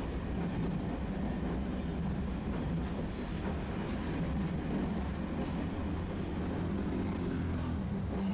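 Tosaden streetcar running on its rails: a steady low rumble of wheels and running gear.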